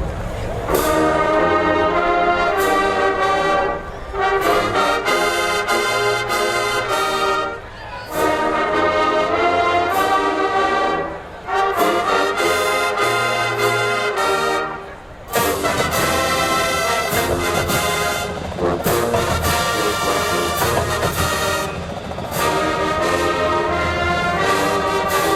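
Marching band brass section playing a loud tune in phrases, with brief breaks between them.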